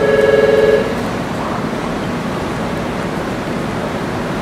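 A short beep, two close tones held for just under a second, right at the start, over a steady hiss of background noise.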